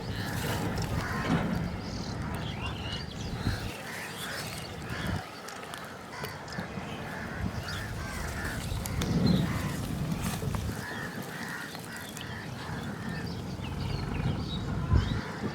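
Birds calling repeatedly in short calls over a low rumble.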